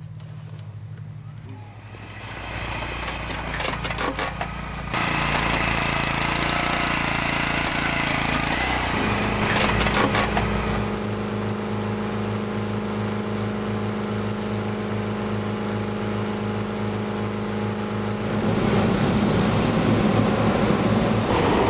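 Hot-air balloon inflator fan's small petrol engine running steadily, its note stepping up as the envelope is cold-inflated. Near the end a propane burner's rushing roar joins it.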